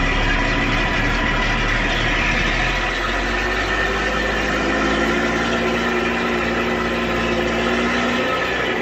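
MAN 22.190 truck's diesel engine running steadily at low revs as the truck moves slowly, heard from outside the cab.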